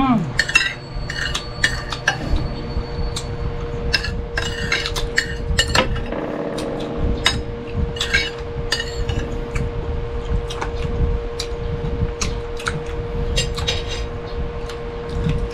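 Spoons and forks clinking and scraping on plates while eating, many short irregular clicks over a steady low hum.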